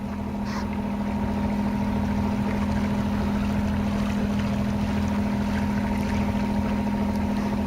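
A sailing yacht's engine running steadily as the boat motors along, with a steady drone that builds a little over the first couple of seconds.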